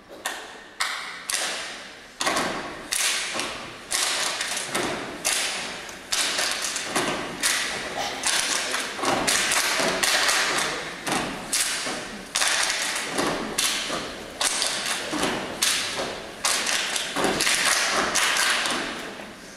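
Step team stepping: a fast, uneven rhythm of foot stomps and hand claps on a wooden stage floor, each hit echoing in the hall, tapering off near the end.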